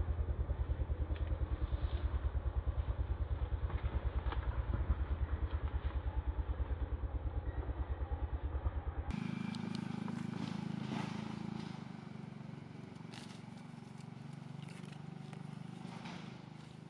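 An engine idling with a steady, evenly pulsing low throb. About nine seconds in it cuts off abruptly, giving way to quieter light crackling and scraping in dry leaves and grass.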